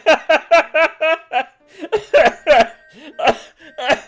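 A voice laughing in a quick run of short bursts, about four a second, followed by a few more scattered laughing bursts.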